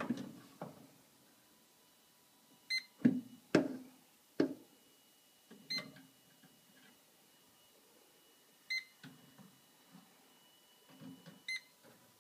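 Electronic refrigerant leak detector (Testo 316-4) giving short, high beeps about every three seconds while probing a fridge for a gas leak, with sharp handling knocks and thumps in between, the loudest a few seconds in.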